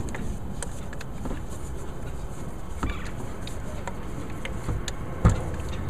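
Faint plastic clicks and scrapes as a DEF jug's threaded spout is screwed onto a car's DEF filler neck, over a steady low rumble, with one sharp knock about five seconds in.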